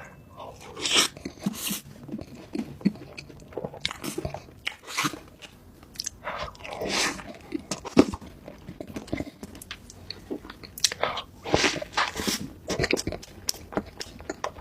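Close-miked eating: crisp bites and crunching, with chewing in between, in irregular bursts.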